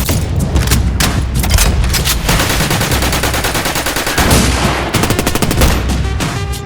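Sound-designed film gunfire: a dense volley of rapid automatic shots overlapping one another, over a heavy low rumble.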